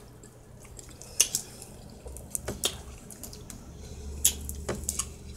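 A few short, sharp clicks and cracks, spaced irregularly, as food is picked apart with the fingers at the table.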